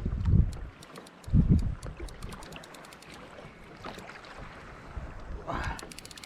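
Kayak on open sea: two heavy low thumps early on over a steady hiss, with scattered faint ticks and wind buffeting the microphone.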